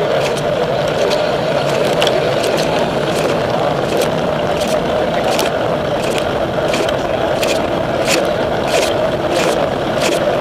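Steady rolling and wind noise picked up by a camera mounted on a moving bicycle, with frequent sharp clicks and rattles, about one or two a second and irregular.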